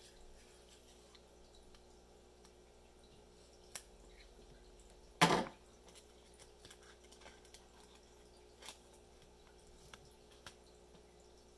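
Scotch tape being picked at and peeled from a rigid plastic card top loader, and the card slid out. There are faint scattered clicks and ticks of plastic and fingernails, and one louder brief rasp about five seconds in.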